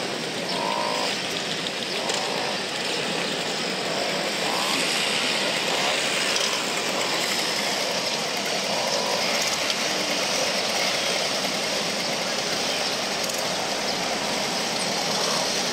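A group of vintage mopeds with their small engines running together at idle, making a steady, continuous din.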